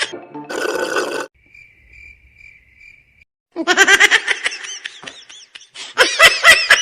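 Faint cricket chirping, a steady pulsing high chirp used as an awkward-silence sound effect, after a brief noisy burst. About halfway through, rapid high-pitched laughter comes in, stops for a second, and starts again near the end.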